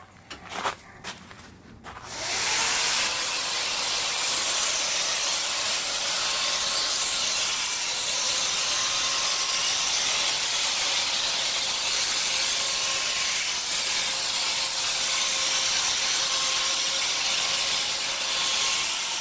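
A few knocks, then about two seconds in a paint sprayer starts spraying: a steady hiss with a faint steady whine underneath.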